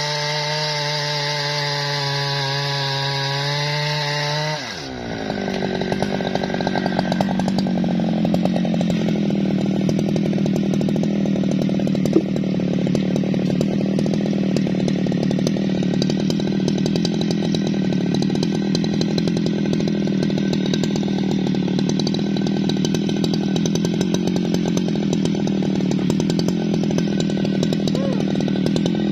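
Jonsered two-stroke chainsaw cutting into a tree trunk at full throttle for about the first five seconds while making the felling notch. The throttle is then released and the engine drops sharply to a steady idle for the rest. One sharp knock comes about twelve seconds in.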